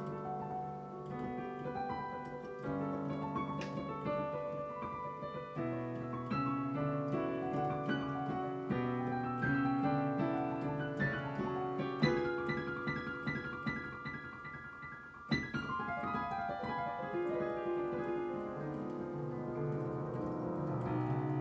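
Digital piano played solo in fast, flowing passages of many quick notes. It grows softer just before a sudden loud chord about fifteen seconds in.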